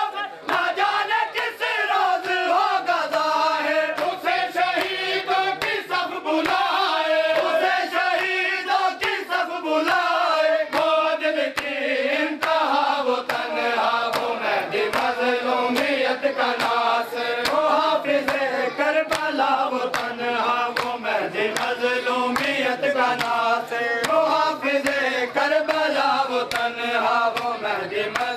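A group of men chanting a Muharram noha in unison, with the sharp rhythmic slaps of hands beating on chests (matam) keeping time throughout.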